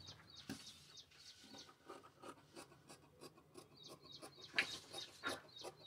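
Tailor's scissors snipping through blouse cloth on a cutting table: a run of faint, crisp snips and scrapes, a little louder past the middle, as the front panel's neckline is cut away.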